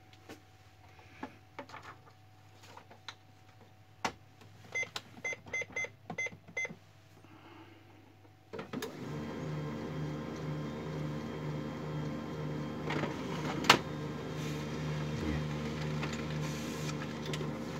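A few clicks and a quick run of short beeps, then about eight and a half seconds in the HP LaserJet 3055 MFP starts feeding a page: its drive motor and gear train run steadily with an even pulse about twice a second and one sharp click partway through. This is the gear noise on paper pick that the printer has developed and that the owner is setting out to fix.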